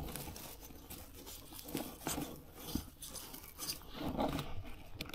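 Irregular crunching and scraping of pine-needle litter and soil as níscalos (saffron milk caps) are uncovered and picked by hand from the forest floor, with a louder burst about four seconds in.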